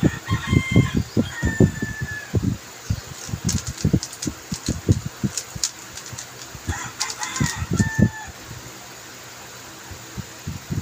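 Plastic 3x3 speed cube being handled and turned, irregular low knocks and clacks. A rooster crows twice, about half a second in and again about seven seconds in.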